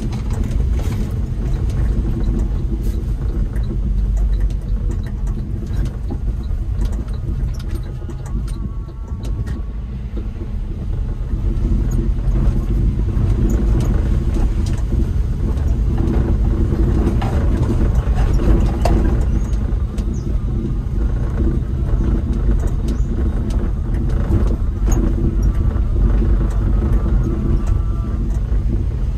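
Suzuki pickup truck's engine and road noise heard from inside the cab while driving, a steady low rumble. It drops lower for a few seconds around the middle, then picks up again and stays higher.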